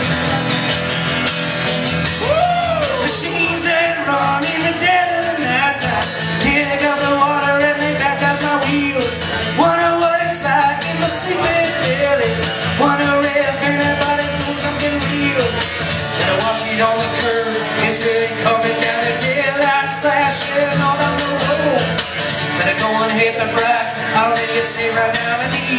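Live acoustic song: a man singing over his own strummed acoustic guitar, the voice sliding between held notes.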